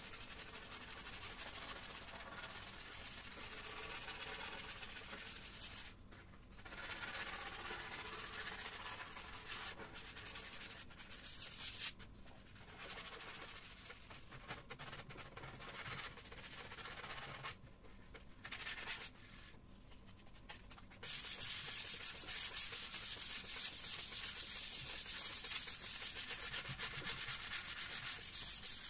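Hand sanding of a finger-jointed rubberwood panel: sandpaper rubbed back and forth in quick, scratchy strokes. It comes in bouts with short pauses, and the last bout, about two-thirds of the way through, is louder and steadier.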